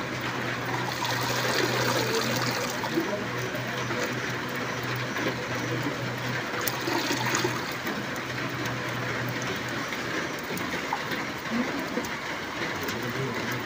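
Hands swishing and squeezing leafy greens in a basin of water, with small splashes, over a steady hiss of rain and a low steady hum.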